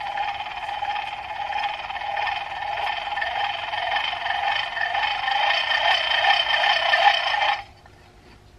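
Gear train of a 1920s Keystone Iron City hand-crank grinder whirring with a steady whine as its handle is turned, its bearings freshly oiled with sewing machine oil. The whine grows a little louder, then stops abruptly about seven and a half seconds in.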